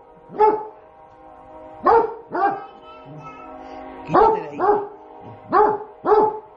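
A dog barking at food too hot to eat: about seven short, loud barks, mostly in pairs about half a second apart, with pauses between the pairs. Background music plays underneath.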